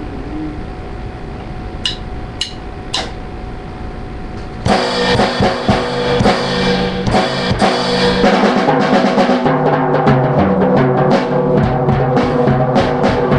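Three sharp clicks about half a second apart, then, almost five seconds in, a drum kit comes in loud: fast playing on toms, snare and bass drum with crashing cymbals.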